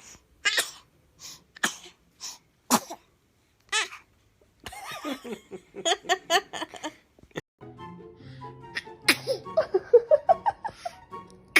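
A baby sneezing in a quick run of short sneezes, about five in the first four seconds, followed by small high vocal sounds. Background music comes in about two-thirds of the way through, with one more sneeze over it.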